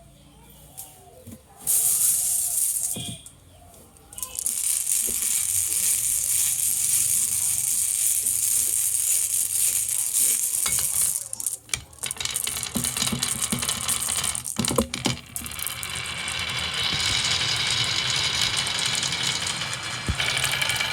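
Many marbles rolling and clattering down a marble run: a dense, high rattle that runs in long stretches, with a few short breaks where it drops away.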